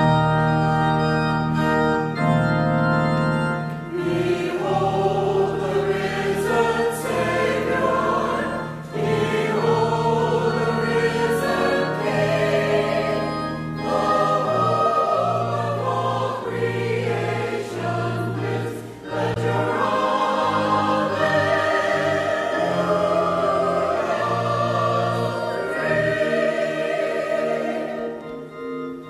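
Choir singing with organ accompaniment: sustained low organ notes under the sung lines, easing off near the end.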